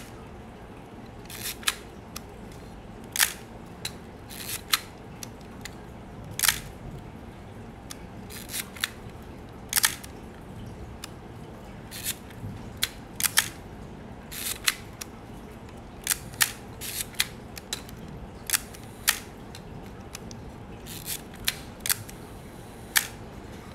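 Nikon FM's mechanical vertical-travel metal focal-plane shutter firing over and over, a sharp click every second or two, sometimes in quick pairs.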